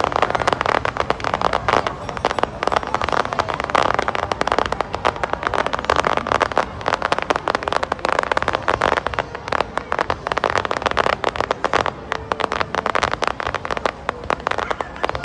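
Fireworks going off in a dense, unbroken run of crackling pops, with voices of the watching crowd underneath.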